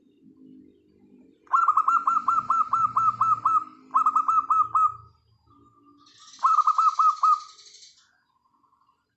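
Zebra doves cooing in soft, low phrases, while another bird breaks in loudly three times with quick runs of high, repeated chirps, about a second and a half, four seconds and six and a half seconds in.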